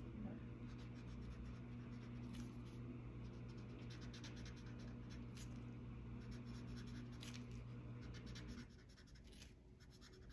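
Tip of an alcohol ink marker dabbing and stroking on paper: faint, short scratches. A steady low hum sits under it and stops near the end.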